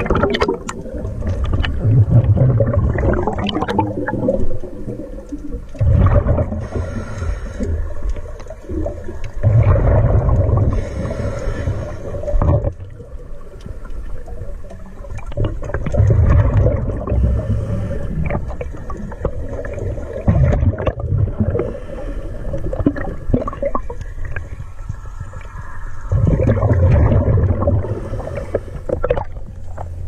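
Scuba regulator breathing heard underwater: surges of exhaled bubbles gurgling and rumbling every five seconds or so.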